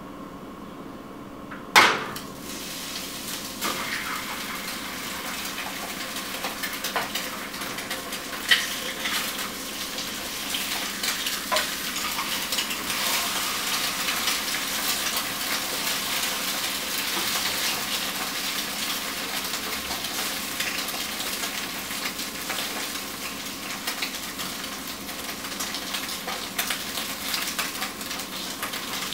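Food sizzling in a hot frying pan, stirred and scraped with a spatula, with occasional knocks of the utensil on the pan. A sharp clack about two seconds in, after which the sizzling builds up.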